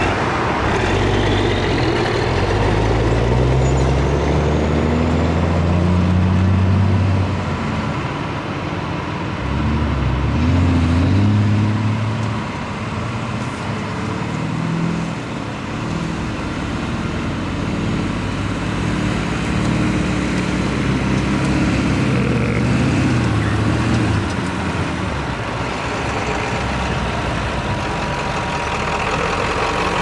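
John Deere self-propelled forage harvester chopping corn for silage, its engine and cutterhead running loud and steady with a thin steady whine, alongside a truck's engine. Engine pitch rises and falls several times.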